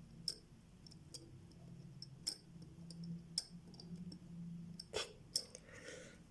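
Small sharp clicks of watchmaker's hand tools against the small metal parts of a Vostok Amphibia watch movement, about six spread over the few seconds, over a low steady hum.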